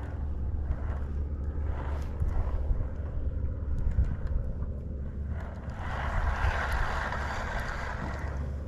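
Steady low rumble of wind buffeting the microphone out on open water. A stretch of louder hiss rises from about six seconds in and fades near the end.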